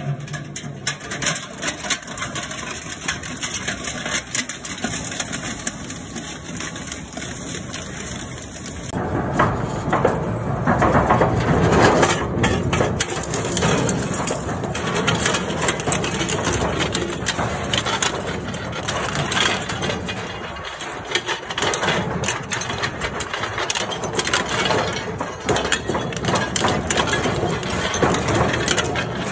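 Twin-shaft shredder's toothed steel rotors grinding and crushing metal parts: a dense, continuous metallic crunching and cracking that grows louder about nine seconds in.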